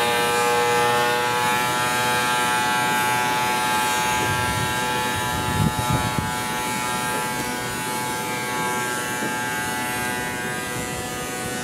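Steady, high buzzing drone of a machine running in a neighbour's workshop, made up of many even overtones. A brief low bump about six seconds in.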